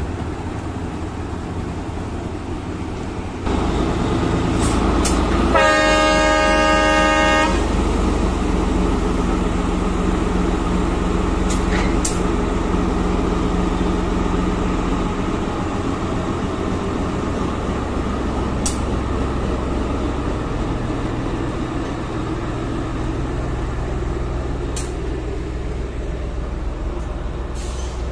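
KAI BB303 diesel-hydraulic locomotive running past, its engine growing louder about three seconds in. Its horn sounds once for about two seconds, then the engine runs on steadily.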